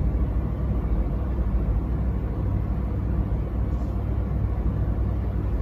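Steady low background rumble, with a faint tick a little under four seconds in.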